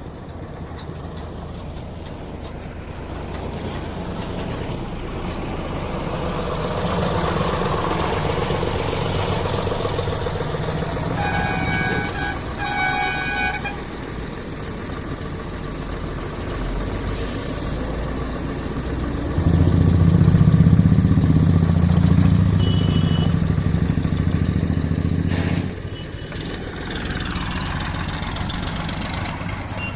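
Diesel engines of tractors and other traffic passing on a road, with a horn honking twice about eleven seconds in. A louder low engine rumble comes through about two-thirds of the way in and drops off abruptly.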